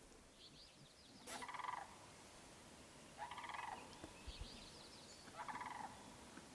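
A faint, short trilling animal call, each trill about half a second long and repeated three times about two seconds apart, with fainter high chirps between them. A single sharp click comes about a second in.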